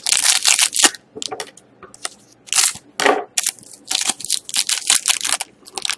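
Irregular crinkling and crackling of trading-card pack wrappers and cards being handled.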